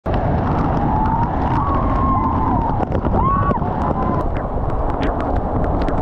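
Steady rumbling noise of a moving vehicle, with a few short rising-and-falling whistle-like tones partway through.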